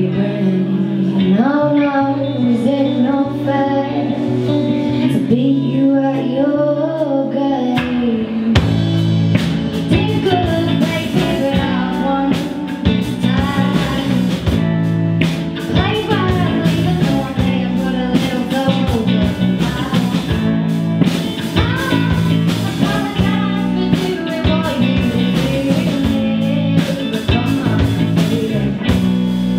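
Live indie rock band: a woman singing lead over bass and electric guitars. About eight seconds in the drum kit and cymbals come in and the full band plays on under the vocal.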